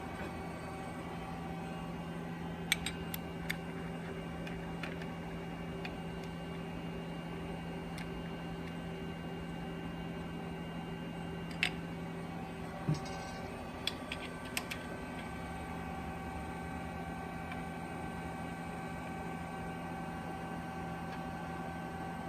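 Steady hum of running equipment in the room, its pitch mix shifting about halfway through. A few light clicks and taps of metal hardware sound as a split ring is snugged up by hand on the glass, in a cluster near the start and several more around the middle.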